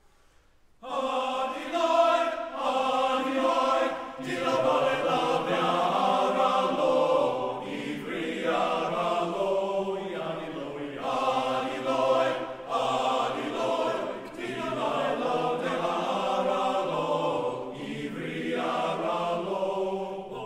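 Men's chorus singing a Georgian folk song unaccompanied in several-part harmony, entering together about a second in, with short breaks between phrases every few seconds.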